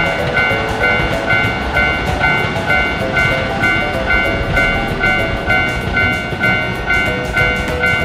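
Japanese railroad crossing warning bell ringing its repeated kan-kan, a little over two strikes a second, over the low rumble of passing electric trains.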